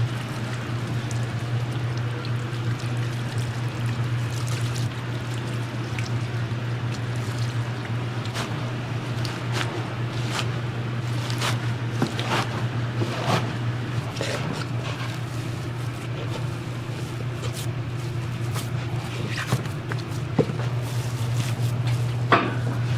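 Commercial kitchen noise: a steady low hum from kitchen equipment, with scattered clinks and clatter of metal cookware and utensils, more frequent in the second half and sharpest near the end.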